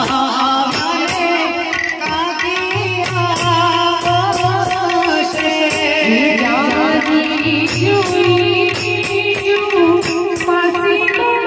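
Live Gujarati wedding folk song (lagna geet): a woman sings into a microphone over an electronic keyboard and drums keeping a steady beat.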